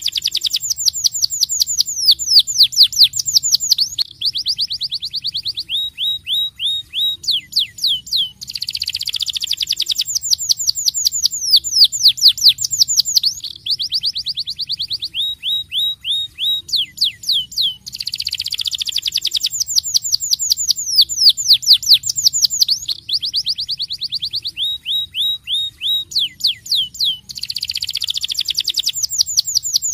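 Starblue canary singing: phrases of fast rolling trills made of high, downward-sweeping notes, each phrase ending in a slower run of lower notes. The phrase repeats about every nine to ten seconds.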